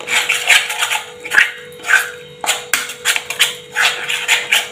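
A spoon scraping and stirring around a metal bowl, mixing a thick masala paste with gram flour, in quick repeated strokes about two or three a second.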